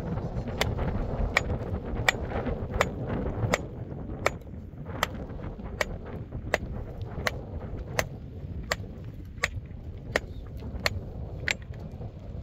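A steady run of sharp knocks, evenly spaced about three every two seconds, over wind rumbling on the microphone.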